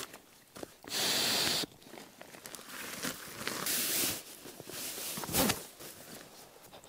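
Nylon stuff sacks and camping gear rustling and rubbing as they are handled and unpacked, with a loud fabric rasp lasting over half a second about a second in and shorter swishes later.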